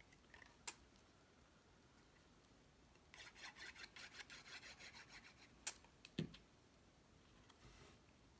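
Faint scratchy rubbing of hands over cardstock, a quick run of short strokes lasting a couple of seconds, with a light click before it and a sharp click and a dull tap on the work surface after it.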